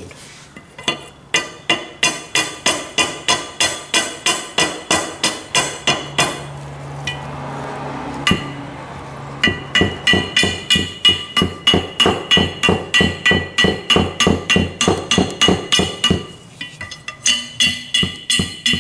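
Rapid, even blows of a plastic-faced hammer on the steel barrel of a Marlin Model 88 M1 .22 rifle, about three to four a second, driving at a front sight that is stuck fast. The blows come in two long runs with a pause of a few seconds between them, and the later blows carry a ringing tone.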